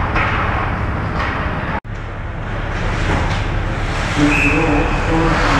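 Steady rumble of game noise in an ice hockey rink, cut off abruptly a little under two seconds in and then resuming; a voice calls out near the end.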